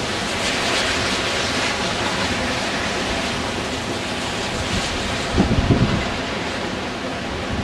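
Storm wind roaring steadily with rain, with a brief low rumble about five and a half seconds in.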